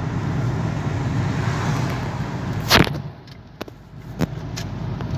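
Opel Antara on the move, its road and engine noise a steady low rumble, with one short loud thump a little under three seconds in, after which the noise drops lower.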